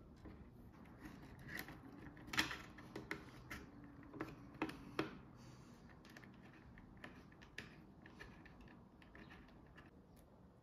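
Irregular light clicks and taps. They come in a cluster from about a second and a half to five seconds in, the sharpest about two seconds in, and a few fainter ticks follow.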